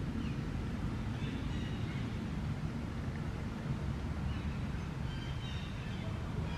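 Outdoor ambience: a steady low rumble, with faint short bird chirps a few times.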